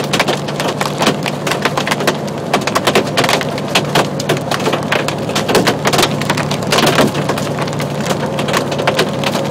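Hailstones from quarter to golf-ball size pelting a truck's cab and windshield in a dense, irregular clatter of sharp hits, heard from inside the cab over the truck's steady low hum.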